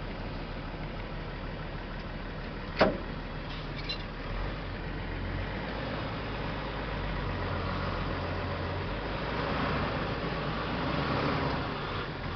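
Truck engine and cab noise heard from inside the cab while driving on a dirt road, with one sharp knock about three seconds in and the noise building a little louder later on.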